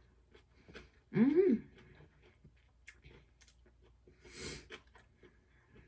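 Eating noises at close range: small wet chewing clicks, a short hummed "mm" about a second in, and a breathy rush of air through the nose or mouth a little past the middle.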